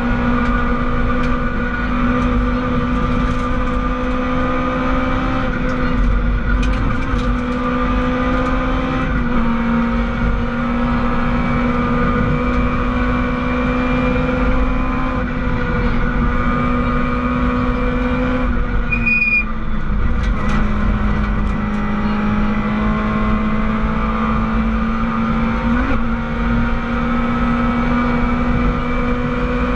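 Rally car engine heard from inside the cabin, running hard at high revs and held fairly steady. Its pitch dips briefly about two-thirds of the way through and then climbs again, over scattered clicks and knocks from the car's body.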